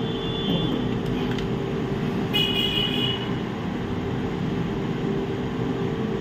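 Steady background hum, with a short high-pitched tone near the start and a louder one, lasting under a second, about two and a half seconds in.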